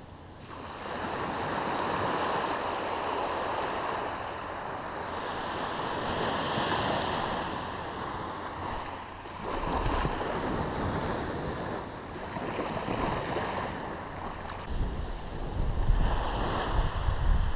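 Surf washing up on a sandy beach, swelling and easing every few seconds, with wind buffeting the microphone as a low rumble that grows stronger in the second half.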